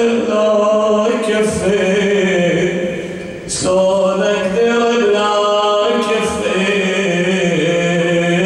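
A man's solo voice chanting a mournful Arabic elegy into a microphone, the kind recited at an Ashura mourning gathering. He holds long, wavering notes, with a short pause for breath about three and a half seconds in.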